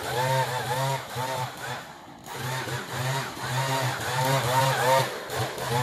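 Leaf blower running, its whine rising and falling again and again, with a brief dip about two seconds in.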